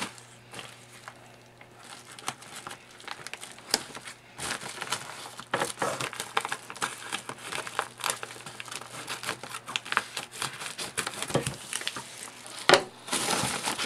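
A padded plastic bubble mailer crinkling as it is handled and cut open with scissors, an irregular crackling that begins about two seconds in and is loudest near the end.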